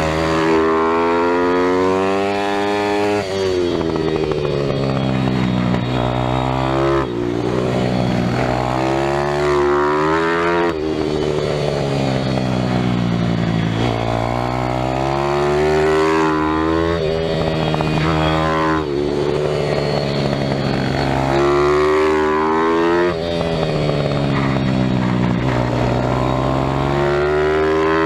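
Single-cylinder four-stroke pit bike engine heard from onboard while ridden around a track, its revs climbing and falling again and again, with short breaks at gear changes and longer falls in pitch when slowing for corners.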